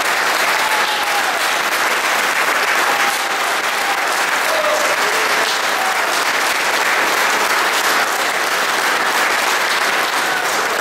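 An audience applauding steadily, the clapping keeping up without a break.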